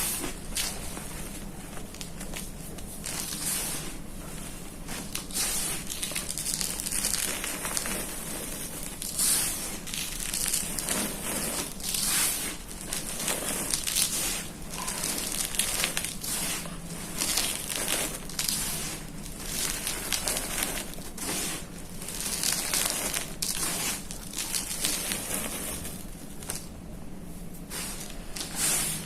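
Blocks of gym chalk crushed under a rolling pin: a continuous run of dry crunching and crackling as the chalk breaks into powder.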